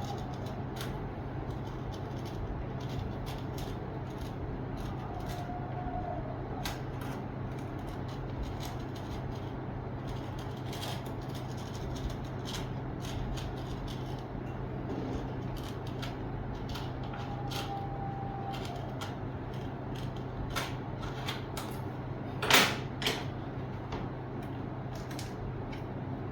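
Quiet work-bench handling noise: scattered light clicks and knocks over a steady low hum, with a short, louder scrape about 22 seconds in.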